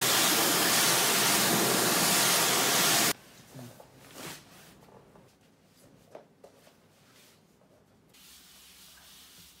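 Vacuum cleaner running steadily, cutting off abruptly about three seconds in. Then quiet, with a few faint rustles and taps of a plastic bag being handled.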